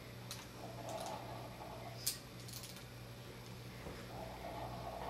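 Small clicks and light scraping as screws are worked out of a laptop LCD panel's side brackets with a screwdriver, with a sharper click about two seconds in and a few quick ticks right after, over a low steady hum.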